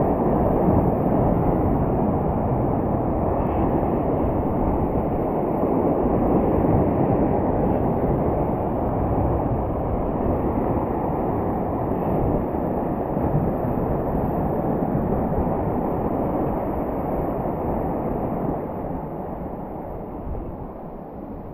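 Surf washing in at the water's edge, mixed with wind rumbling on the microphone: a steady rushing that eases off near the end.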